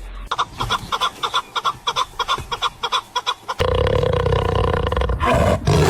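An animal calling: a rapid run of short notes, about six a second, then about three and a half seconds in a long, steady, deeper call.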